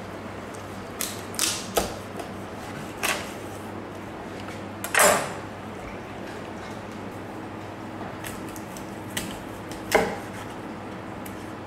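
Heavy kitchen knife chopping through a whole salmon and knocking on a wooden cutting board: a series of sharp, irregular knocks, the loudest about five seconds in.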